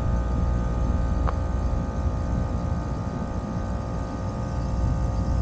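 Tempstar rooftop air conditioner's compressor running with a steady hum, with one sharp tick about a second in. The technician takes the rattle and tick, with the condenser giving off no heat, for a bad compressor.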